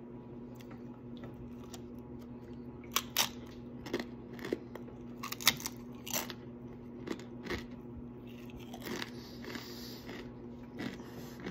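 Paqui One Chip Challenge tortilla chip being bitten and chewed close to the microphone: a run of sharp, irregular crunches starting about three seconds in and going on to near the end.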